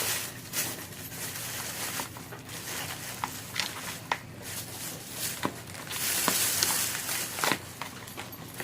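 Slime being kneaded and handled by hand: scattered small sticky clicks and crackles, with a longer rustle about six seconds in.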